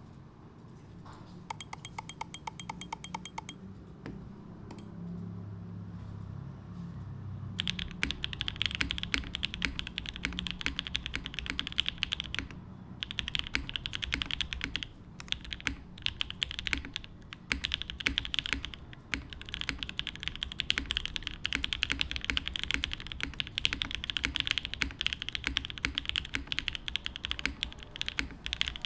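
Typing on a top-mount TGR 910 RE mechanical keyboard with a polypropylene plate, lubed 43 Studio Opblack linear switches and GMK Striker keycaps: a dense run of clacky keystrokes with a few short pauses. The typing starts several seconds in, after a quieter stretch with a low hum and a brief run of evenly spaced clicks.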